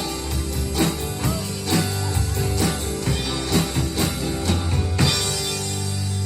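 Live band playing, with drum kit and guitar, drums keeping a beat of about two strokes a second. About five seconds in the drumming stops and a held chord rings on.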